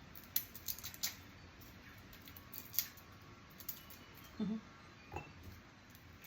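Scattered light clicks and crackles of fresh garlic cloves being handled and peeled, papery skins cracking and cloves knocking together.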